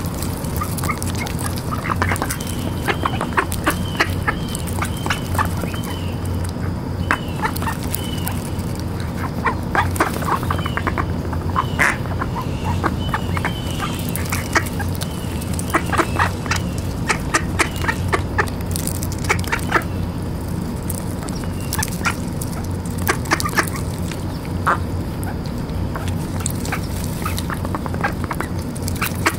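Mallards feeding close up: a steady patter of sharp clicks as their bills snap up popcorn from the grass, with quacking and runs of short high notes now and then.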